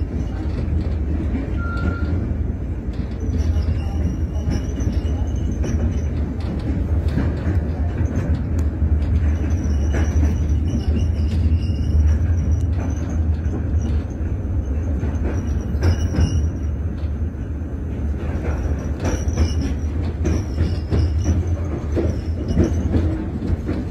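Passenger train running at speed, heard from inside the carriage: a steady low rumble of wheels on rail with scattered knocks, and a faint high wheel squeal that wavers and comes and goes.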